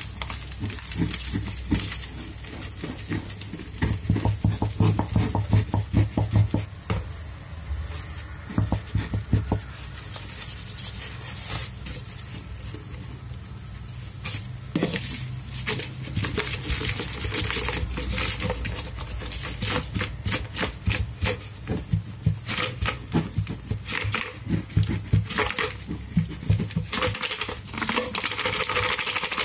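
Plastic canister of dry cleaning powder squeezed and shaken over wet sponges in a stainless steel sink. Quick runs of taps and puffs come as the powder pours out and patters onto the sponges.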